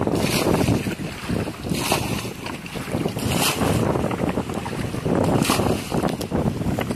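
A plastic bucket scooping and throwing muddy pond water out in repeated splashing sloshes, about four throws roughly every two seconds.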